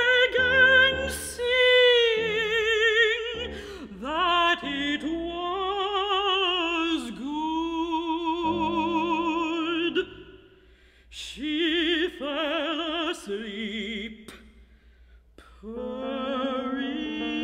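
Operatic female voice singing sustained notes with wide vibrato over grand piano accompaniment. The voice breaks off briefly twice, and near the end the piano carries on alone.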